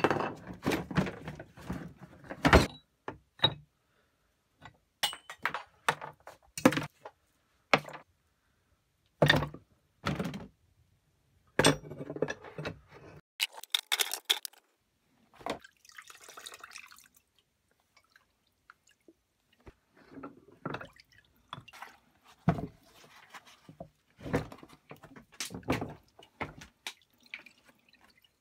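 Rusty cast-iron vise parts knocking against a plastic tub in a series of separate clunks, with dripping and splashing of the distilled vinegar they are soaking in.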